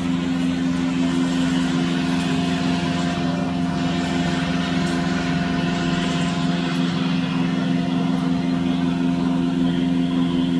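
Electric-motor-driven flour mill (atta chakki) machinery running with a steady hum.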